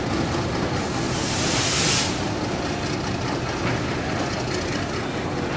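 Railway wagons, including a steam crane wagon and its tender, rolling slowly along the track with a steady noise of wheels on rail. A brief hiss comes about a second in.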